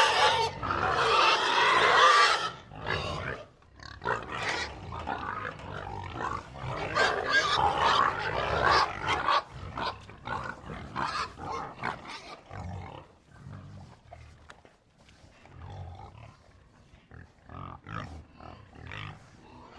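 A herd of pigs grunting and squealing. Loud shrill squeals come in the first couple of seconds, then scattered squeals and low grunts, growing quieter in the second half.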